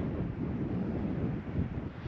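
Wind buffeting the microphone, an irregular low noise with no other clear sound over it.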